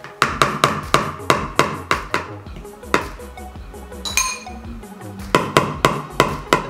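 Metal hand-mixer beaters being knocked against the bowl to shake off whipped cream. There are two quick runs of sharp taps, about three or four a second, the first at the start and the second near the end, with a single metallic ping ringing out about four seconds in.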